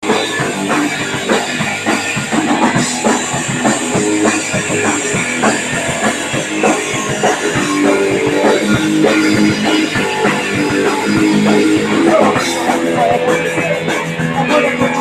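Live punk rock band playing a song, with guitar and a pounding drum kit.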